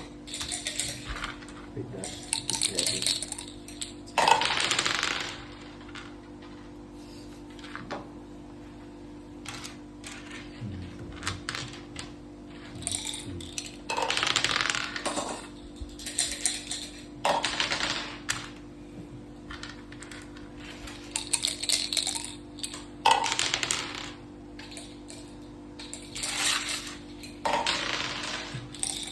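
Dice rattling and wooden or plastic pieces clacking on a mak saka (Thai backgammon) board. It comes in repeated clattering bursts of about a second each, with pauses of several seconds between, over a steady low hum.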